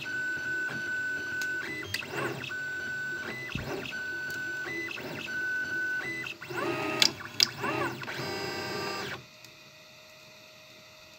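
Prusa-style A6 FDM 3D printer printing: its stepper motors whine at a steady pitch that jumps up and back with each change of move, then sweep quickly up and down in pitch during a run of faster moves. About nine seconds in, the motor noise stops, leaving only a faint steady hum.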